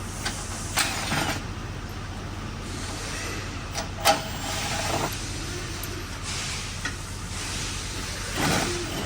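Tools at work loosening the 15 mm bolts that hold a 2012 Cadillac Escalade's splash shield: several short rasping bursts and a sharp click about four seconds in, over a steady low hum.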